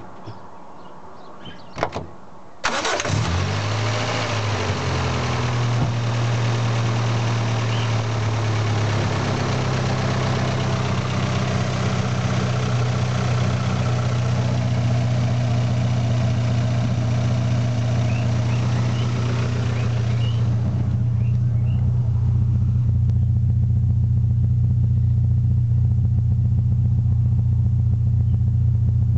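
Toyota 4A-GE 20-valve Blacktop 1.6-litre four-cylinder engine starting after a couple of sharp clicks: it cranks briefly and catches about three seconds in, then settles into a steady idle, its ignition timing advanced by ear to smooth the idle. Near the end it is heard at the exhaust tailpipe, deeper and with less top end.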